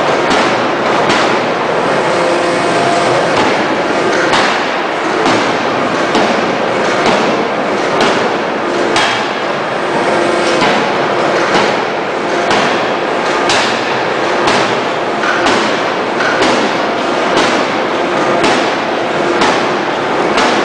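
A 6-tonne electro-hydraulic open die forging hammer striking a red-hot billet again and again, about one blow a second, as it draws the billet out longer. The blows sit over a steady, loud wash of noise.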